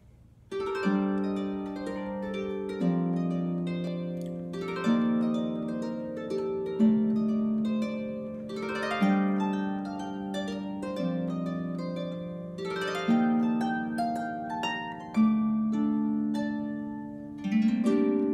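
Lever harp played solo: plucked chords and broken chords that ring on, with a new low note about every two seconds under higher notes, starting about half a second in.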